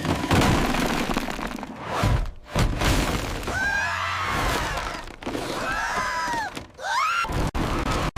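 Cartoon sound effects: a loud crashing noise near the start, then rumbling noise with several swooping rise-and-fall pitched tones over it.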